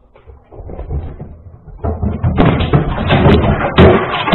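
A cat clambering about on a box-like object: a fast, dense run of thumps and rattling that builds over the first couple of seconds and then gets very loud and distorted.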